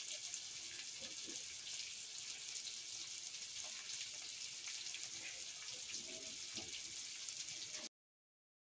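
Food frying in a pan, a steady sizzling hiss with a few faint knocks; the sound cuts off to dead silence shortly before the end.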